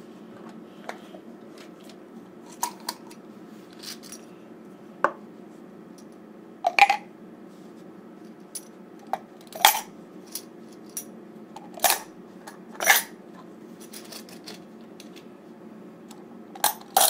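Silver Mexican Libertad coins clinking as they are dropped one at a time into a plastic coin tube: about a dozen irregular sharp clicks, the loudest from about ten to thirteen seconds in.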